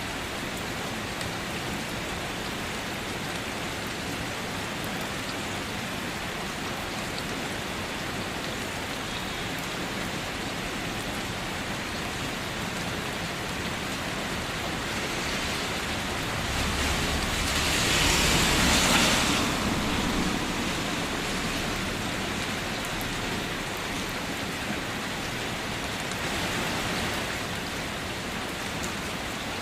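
Steady light rain falling. Partway through it swells to a louder, fuller rush with a low rumble for about three seconds, then settles, with a smaller swell near the end.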